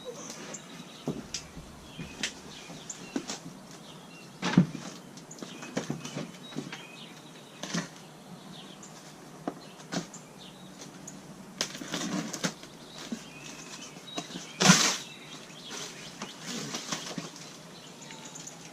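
Cardboard boxes of lathe accessories being opened and unpacked: cardboard and packing rustle, with scattered clicks and knocks as hardware is handled. The sharpest knocks come about four and a half seconds in and near fifteen seconds.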